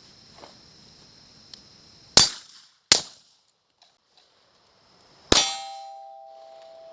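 Three gunshots, the second about three-quarters of a second after the first and the third about two and a half seconds later. The last shot is followed by a steel target ringing on.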